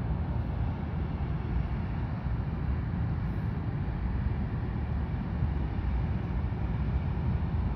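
Steady low rumble of the manoeuvring Stena Jutlandica car ferry, its engines and propellers working close by.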